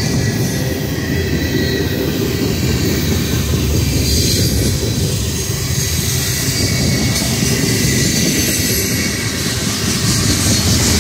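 Freight cars of a CSX manifest train rolling past: a steady, heavy rumble of steel wheels on rail, with a high wheel squeal coming and going.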